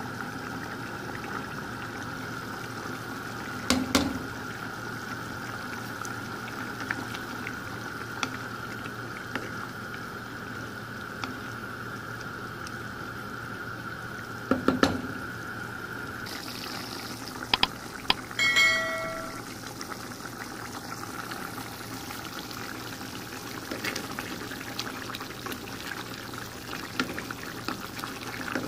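Tomato-based shrimp and okra stew simmering in a pan while a wooden spoon stirs it, with a few sharp knocks against the pan and a brief ringing clink about two-thirds of the way through.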